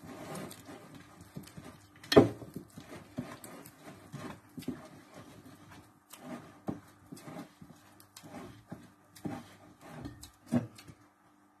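A hand kneading a soft, sticky flour-and-yeast dough in a glass bowl: irregular wet slaps and squelches, with a louder thump about two seconds in and another near the end.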